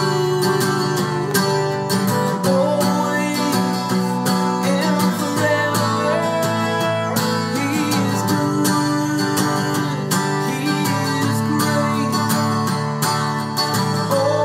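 Acoustic guitar strummed steadily while a man sings a slow melody over it.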